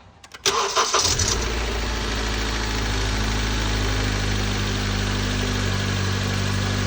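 2015 Honda Civic's four-cylinder engine starting with a set of new spark plugs: a few clicks, a brief crank, and it catches about half a second in, then settles into a steady idle that the owner calls running mint.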